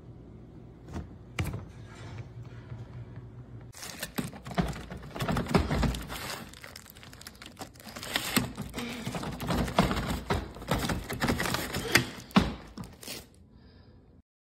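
A dense run of clicks, knocks and rustling, like close handling of hard objects, for about ten seconds after a low steady hum. It cuts off abruptly near the end.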